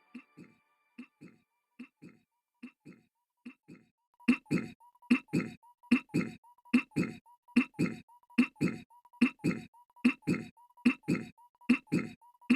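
Goofy's cartoon throat-clearing clip looped in rapid repetition. At first it comes as faint single 'ahem's about every 0.8 seconds, then from about four seconds in as louder doubled 'ahem's at the same pace, over a thin steady tone.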